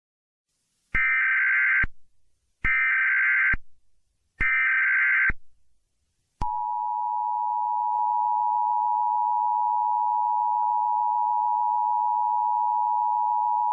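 Emergency Alert System alert tones: three short bursts of digital SAME header data, each about a second long and a moment apart. Then the steady two-tone EAS attention signal begins about six seconds in and holds.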